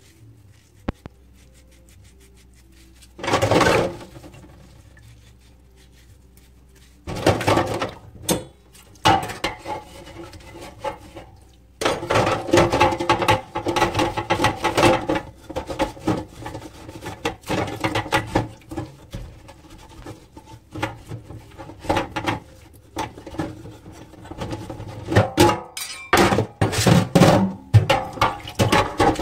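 Scrubbing of gas-stove burner caps and a metal stove grate with a mesh scrubber in a stainless-steel basin of water, with scraping and the clatter of metal parts against the basin. A few separate scrubs come in the first half, and from about twelve seconds in the scrubbing is nearly continuous.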